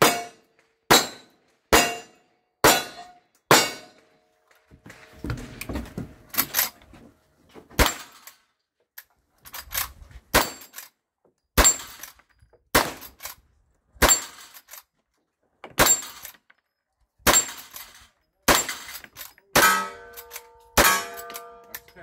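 Gunfire at steel targets: five quick revolver shots about a second apart, then a pause with handling noise, then about ten lever-action rifle shots at roughly one a second. The hit steel plates ring after several shots.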